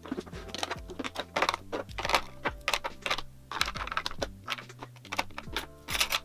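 Plastic makeup compacts, tubes and tools clicking and clacking against clear acrylic drawer organizers as they are picked up and set down, in quick irregular taps. Soft background music underneath.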